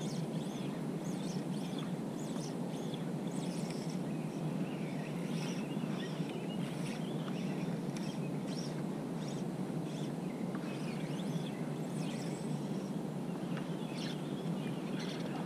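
Birds chirping and singing in many short, scattered calls over a steady low outdoor rumble.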